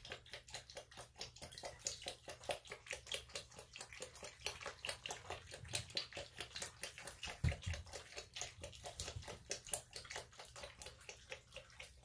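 Opossum lapping water from a plastic bowl: a fast, regular train of wet laps, about five or six a second, which the keeper calls so loud. A brief low bump comes a little past halfway.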